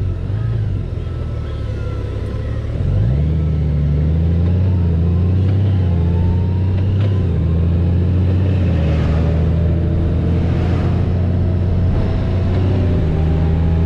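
2018 Honda Gold Wing's flat-six engine running under way. About three seconds in its pitch and level rise as the bike accelerates, then it holds a steady tone.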